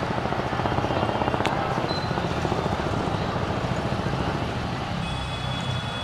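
Train 18 (Vande Bharat Express) electric trainset approaching at speed: a steady rumbling running noise with a rapid flutter, and a faint thin high tone entering near the end.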